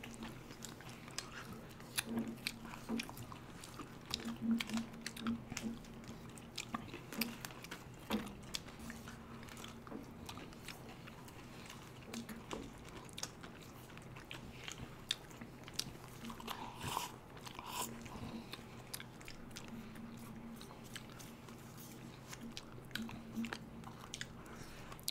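Ice cream being eaten at close range: irregular small mouth clicks, smacks and chewing from several eaters, with wooden spoons working in paper tubs. A faint steady low hum runs underneath.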